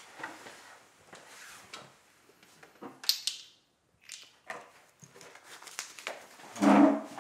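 Quiet handling sounds: small clicks and paper rustling as banknotes and small vials are handled on a wooden table, with a brief louder sound near the end.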